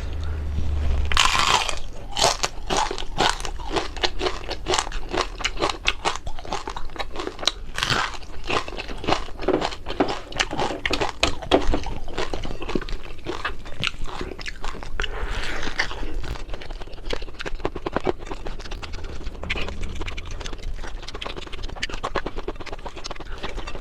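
Close-up chewing of crispy fried fish: dense, sharp crunches and bites that keep on throughout.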